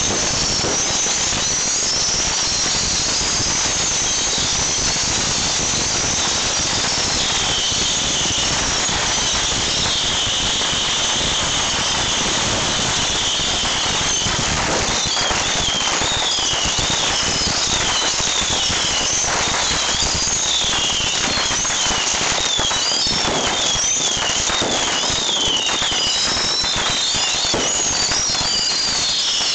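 Bottle rockets firing nonstop in a mass launch from a homemade launcher: a dense, steady crackle of launches and pops, with many overlapping shrill whistles sliding up and down in pitch.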